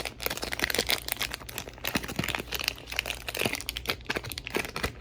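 Plastic packaging crinkling and rustling as a 2x2 speed cube is unpacked from its box, a dense run of small crackles and clicks.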